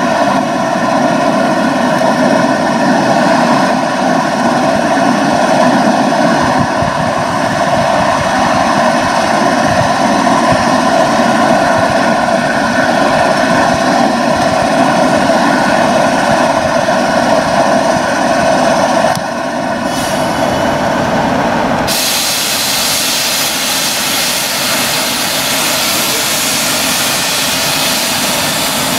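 Electric regional trains: a double-deck train approaches with a steady whining hum. About two-thirds through, the sound changes to a broad rushing hiss of wheels and air as an electric locomotive hauling double-deck coaches passes close.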